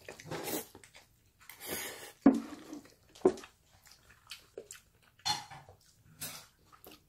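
Close-up slurping and chewing of jjajang sauce noodles in several short, wet pulls. About two and three seconds in come two sharp clicks of metal chopsticks against the bowl.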